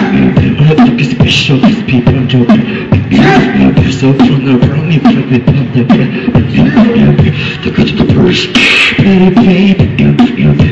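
Human beatboxing: rapid drum-like mouth clicks, kicks and snares over a hummed, pitched bass line. A hissing, cymbal-like burst comes about eight and a half seconds in.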